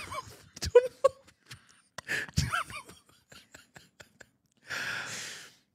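A man laughing hard, in short breathy wheezes and gasps with a few voiced squeaks early on, then a long drawn gasp for breath near the end.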